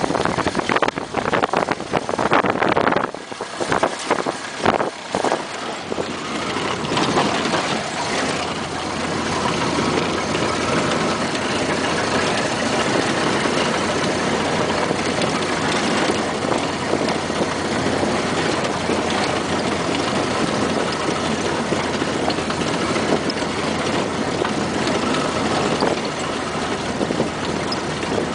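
Ford Model A's four-cylinder engine running steadily while the car drives along a dirt track. Wind buffets the microphone in gusts for the first few seconds.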